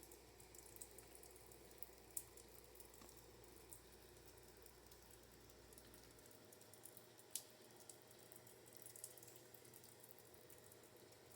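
Near silence: faint background hiss with a few soft, sharp clicks, the clearest about two seconds in and again past seven seconds.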